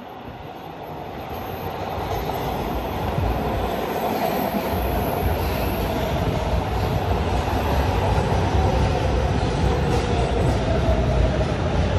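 MARTA CQ310/311/312 heavy-rail train pulling into an underground station: its rumble grows louder over the first few seconds as it comes out of the tunnel, then holds steady as the cars run past and slow, with a faint whining tone over the rumble.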